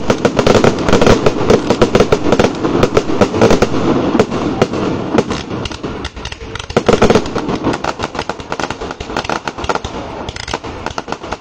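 Fireworks going off in rapid succession: a dense string of bangs and crackles from shells and ground fountains, easing briefly about six seconds in, surging again, then thinning out.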